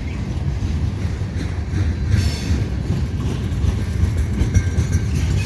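Freight cars of a long mixed freight train rolling past, a steady low rumble of steel wheels on the rails with clickety-clack at the rail joints. A brief high wheel squeal comes about two seconds in.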